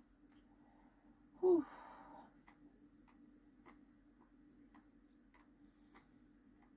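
A short vocal sound from the woman, falling in pitch with a breathy tail, about a second and a half in. Soft steady ticking at about two ticks a second runs under a low hum.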